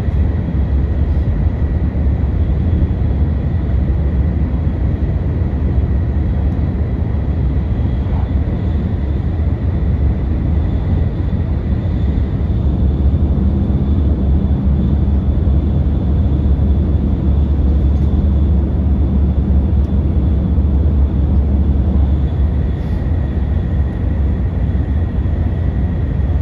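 Running noise of a Kyushu Shinkansen N700-series train heard inside the passenger car: a loud, steady low rumble with a faint high whine that fades out midway and returns near the end.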